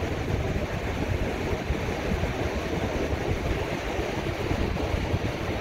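Steady ocean surf, with wind rumbling on the microphone.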